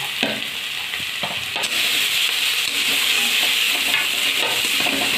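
Onions and ginger-garlic paste sizzling in hot oil in a metal kadai while a spatula stirs them, scraping the pan a few times early on. The sizzle gets louder about a second and a half in.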